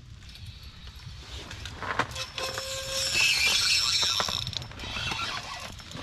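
Ice-fishing reel being handled and cranked: a run of fast mechanical clicking and whirring that starts about two seconds in, is loudest in the middle and eases off near the end.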